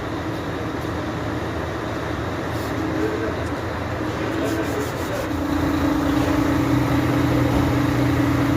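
Heavy truck running steadily, with a low hum throughout and a steady tone joining about five seconds in as the sound gets a little louder.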